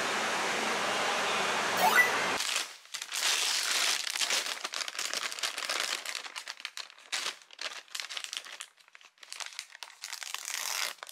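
Steady indoor crowd hubbub that cuts off about two seconds in, then a plastic mailer bag and plastic-wrapped packs of face masks being handled and opened, crinkling and rustling unevenly.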